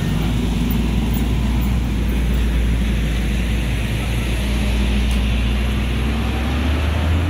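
Road traffic: motorbike and truck engines running as they pass close by, a steady low rumble.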